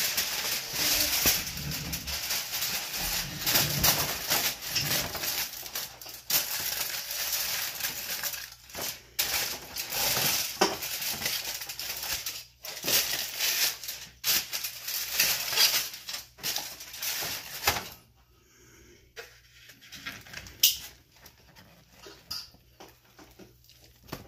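Aluminium foil crinkling and rustling as a sheet is handled and pressed into a pan, with scattered sharp clicks and knocks. It stops about 18 seconds in, leaving only occasional light clicks.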